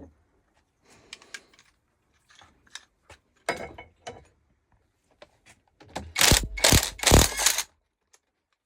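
Scattered metallic clicks and scrapes as a three-jaw puller is tightened on a gearbox input-shaft ball bearing to draw it off. About six seconds in comes a louder burst of metal clanking that lasts over a second.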